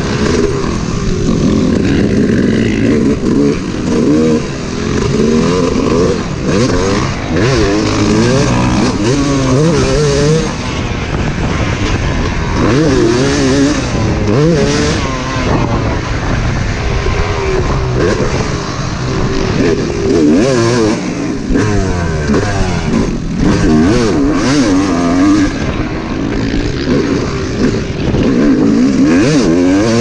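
Yamaha 250 motocross bike engine, heard from on the bike, revving up and falling back again and again as the rider accelerates, shifts and brakes around the track, with wind rushing over the microphone.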